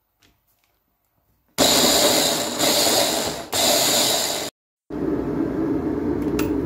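Electric mini chopper blitzing a chilli-and-ginger paste: the motor starts about a second and a half in and runs in three pulses for about three seconds. After a brief break, an electric kettle heating up gives a steady low rumbling hiss.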